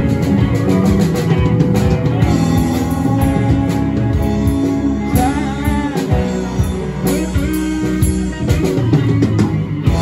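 Live rock band playing an instrumental jam: electric guitar, bass, drum kit and keyboard, with a lead line that bends and wavers in pitch around the middle.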